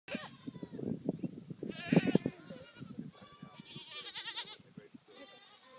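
Goats in a herd bleating: several wavering calls, one about two seconds in and a higher, longer one around four seconds in, over low knocking and rustling.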